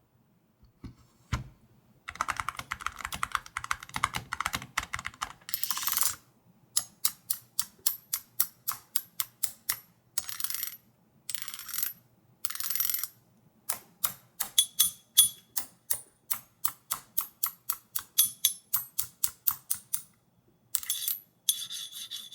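Typing on a low-profile mechanical keyboard fitted with full-metal keycaps. A fast run of keystrokes starts about two seconds in, then single clacks come at about two to three a second, broken by short rapid runs.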